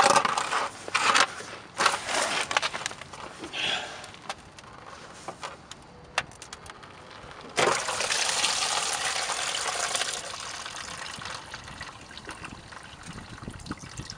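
Engine coolant gushing from a pulled-off lower radiator hose and splashing into a plastic drain pan. It starts suddenly about halfway through and eases off towards a trickle near the end, after a few seconds of short handling noises as the hose is worked loose.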